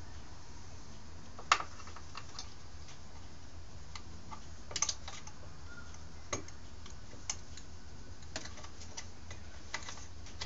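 Scattered light clicks and taps of hands working parts on an old Stihl S10 chainsaw's carburetor and fuel line, the loudest about one and a half seconds in and a quick cluster near the middle.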